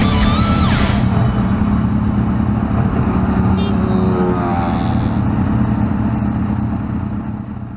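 A motorcycle riding past on the road, its engine note rising and then falling away about four to five seconds in, over a steady low rumble that fades out near the end.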